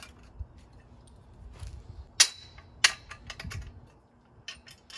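Sharp metallic clinks and taps as bolts, nuts and tools knock against the steel frame of a welding table being assembled. The loudest clink comes about two seconds in and rings briefly. Another follows just under a second later, and lighter taps come near the end.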